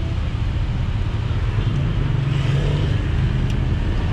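Suzuki APV's four-cylinder petrol engine idling steadily, heard with the hood open, its low, fast pulsing note even throughout.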